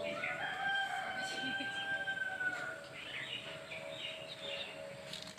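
A rooster crowing once, one long drawn-out call of about two and a half seconds that drops in pitch at the end.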